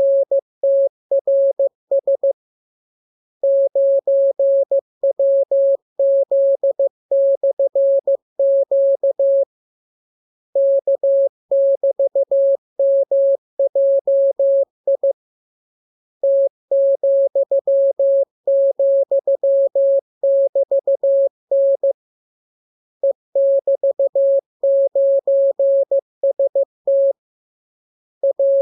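Morse code sent as a single mid-pitched electronic tone, keyed on and off in dots and dashes. The characters come in runs of several seconds with pauses of about a second between them: a code-practice radiogram of the lesson's letters, numbers and signs.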